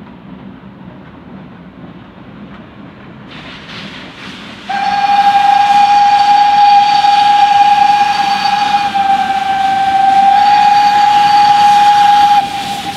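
Steam locomotive whistle blowing one long blast of about seven and a half seconds, a steady tone that dips slightly partway through, then cuts off. Under it, the rumble of the approaching steam train grows louder.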